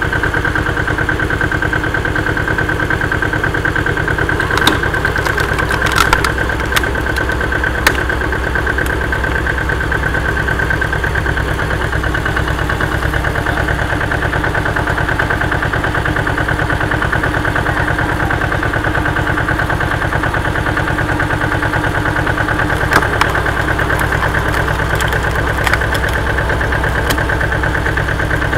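Tractor engine running steadily, driving a PTO screw-cone log splitter, with a steady high whine over the rumble. A few sharp cracks come as the log splits on the cone, several around the first third and a couple more near the end.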